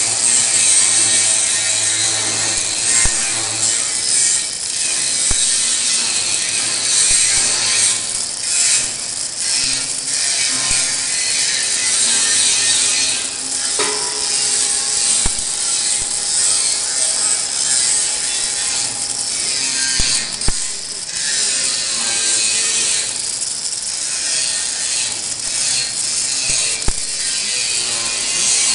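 Arc welding on a steel pipe: a steady, loud sizzling hiss with irregular crackle and scattered sharp pops as the arc burns and throws sparks.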